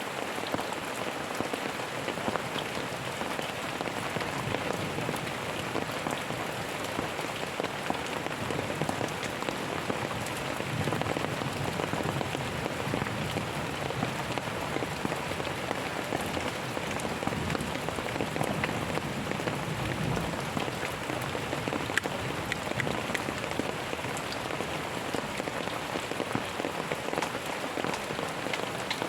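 Steady rain falling on a surface: a constant hiss with many individual drops ticking through it.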